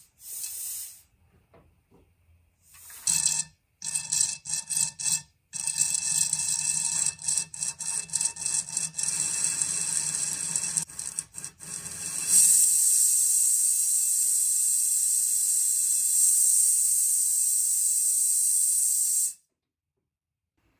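Compressed air blown through a car's rear brake lines to purge old brake fluid. After a few short bursts, the hiss starts and stops in a choppy sputter as fluid is forced out. About twelve seconds in it turns into a steady, louder hiss, then stops suddenly near the end.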